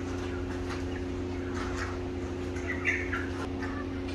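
A caged flock of young white chickens clucking and cheeping in short scattered calls, with one louder call about three seconds in. A steady low hum runs underneath.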